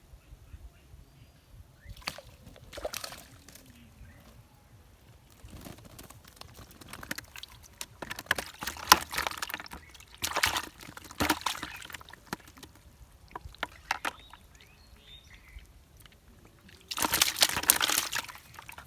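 Water splashing and sloshing in irregular bursts, the longest and loudest near the end.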